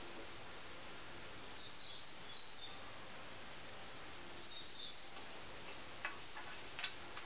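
Steady background hiss with two brief spells of high bird twittering, about two seconds in and again about five seconds in. Near the end come a few small sharp clicks and taps as tiny model parts are handled and pressed on the wooden desk.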